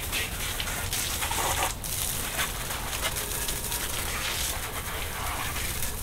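Garden hose spraying water, a steady hiss that swells and dips as the spray moves.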